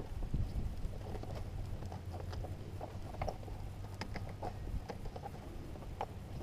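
Scattered small plastic clicks and taps of hands gripping and twisting at a stubborn oil filler cap on a V8 engine cover, over a steady low rumble.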